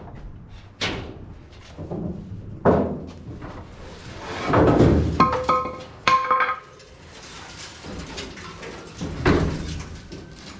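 The bare steel cab of a 1960 Ford F100 being tipped upright by hand onto a wooden cart: a string of thumps and knocks. Around the middle comes a louder stretch of scraping and creaking sheet metal, ending in a sharp bang, and another knock comes near the end.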